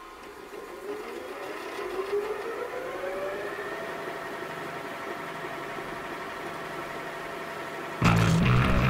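Several tones gliding upward together over the first few seconds and then holding steady, like a videotape player spinning its tape up to speed. About eight seconds in, loud rock music with guitar cuts in abruptly.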